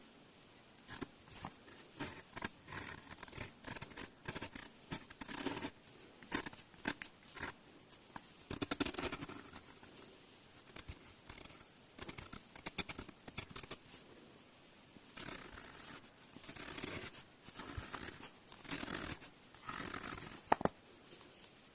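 Glass dip pen nib scratching on paper, writing characters in short, irregular strokes and longer scrapes with brief pauses between them. The strokes stop shortly before the end.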